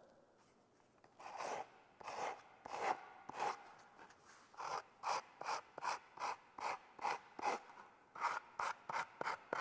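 Vacuum-formed plastic slat tip rubbed back and forth on a sanding block, smoothing its corner: a run of short dry scrapes, about two to three strokes a second, starting about a second in.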